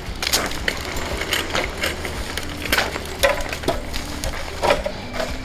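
Wire shopping cart loaded with mangoes rattling as it is pushed over rough, cracked concrete: a run of irregular knocks and clicks.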